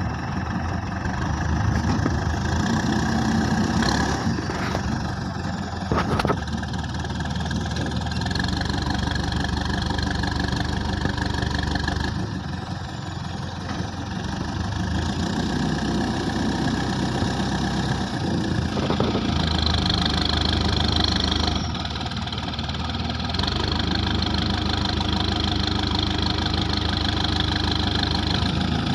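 Terex 740S backhoe loader's diesel engine running under work, its loudness rising and falling in stretches, with two sharp knocks about four and six seconds in.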